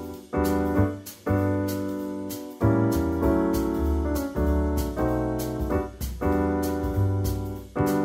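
Background piano music: chords struck one after another, each left to ring and fade before the next.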